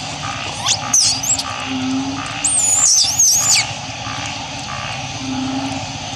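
A macaque's high-pitched squeals, twice: a short one about a second in, then a longer wavering one around three seconds in, over a steady background hum.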